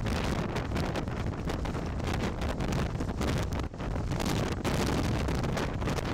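Strong storm wind buffeting the microphone in gusts, over heavy surf breaking on rocky cliffs.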